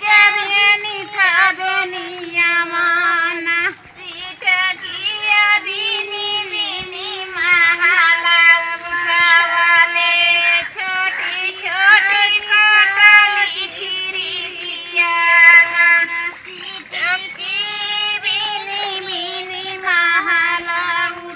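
Women's voices singing a Kajri folk song in phrases, the work song of village women transplanting paddy.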